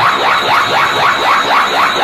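Dragon Ball Z sound effect of Goku's Kaioken energy ball charging: a steady, loud, pulsing whoosh made of rapid repeating sweeps, about five a second.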